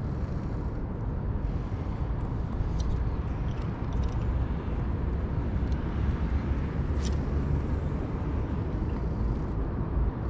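Steady low rumble of outdoor background noise, with a few faint short clicks, the sharpest about seven seconds in.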